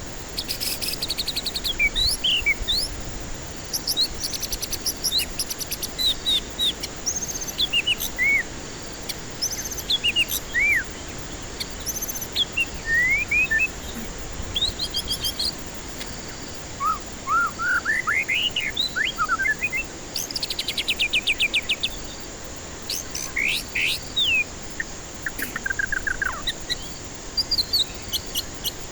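White-rumped shama singing a varied song of clear whistles that rise and fall, mixed with fast rattling trills, in short phrases one after another. A steady high hiss runs beneath it.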